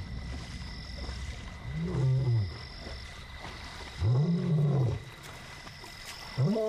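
Male lion roaring: a series of deep moaning calls, each rising and then falling in pitch, about two seconds apart, with a third starting near the end. It is a contact call, the lion calling out to find its lost companion.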